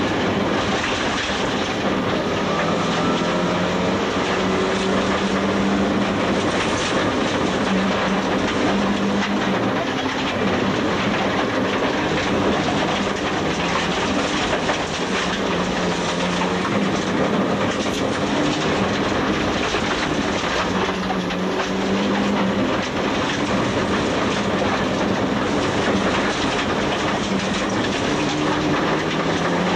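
Rally car engine heard from inside the cabin, revving up and dropping back repeatedly as it is driven hard through the gears, over a constant rush of gravel road noise.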